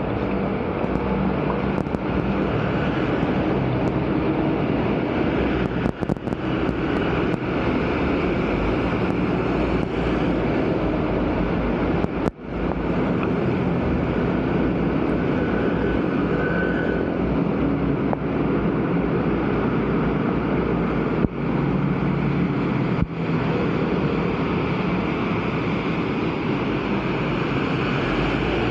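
Steady rushing of muddy floodwater running along a street curb toward a clogged drain, with a few brief gaps.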